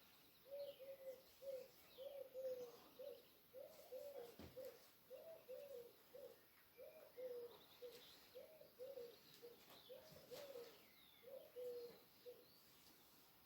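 Dove cooing faintly: a long run of short, soft coos at one low pitch, often in pairs and slightly falling, about two a second, stopping near the end. Fainter higher bird chirps sound over it.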